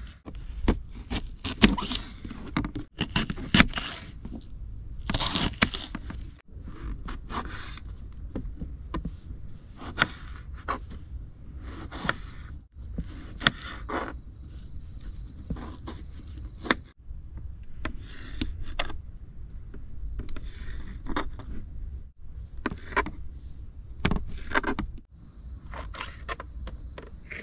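Objects being handled and set down: irregular clicks, knocks, rattles and scrapes, over a low rumble of wind on the microphone.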